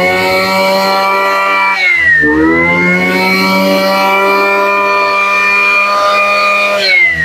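Small two-stroke brush cutter engine, a 26cc Mitsubishi TU26, running at high revs with a steady high whine. The throttle eases off briefly about two seconds in, the pitch dipping and climbing back, and the pitch falls again near the end as the throttle is let off.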